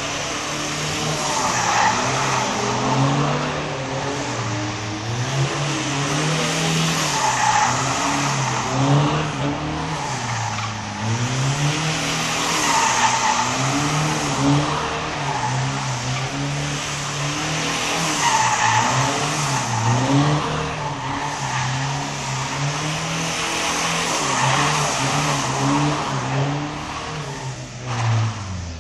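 Turbo-diesel Toyota Corolla engine revving up and down as the car drifts round and round, tyres squealing in a skid about every five to six seconds. The engine fades near the end.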